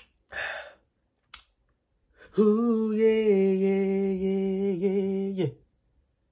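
A man's voice: a short breathy exhale, then one long held 'ahh' at a steady pitch for about three seconds, his reaction to a swig of his drink.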